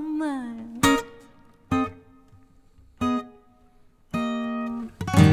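Jazz band with acoustic guitar, double bass and saxophone playing short stop-time chord hits: a held note with vibrato dies away, then four separate strummed chords with pauses between them, the last held a little longer. The full band comes back in right at the end.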